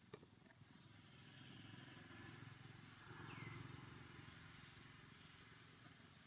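Faint low rumble of a distant motor vehicle swelling and fading away, with a single click near the start and a short high falling chirp about halfway.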